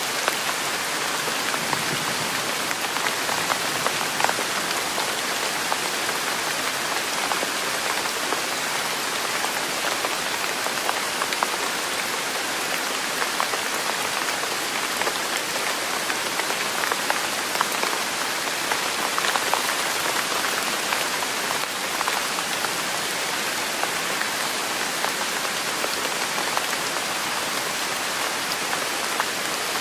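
Steady rain falling on a surface, an even hiss with many small drops ticking through it.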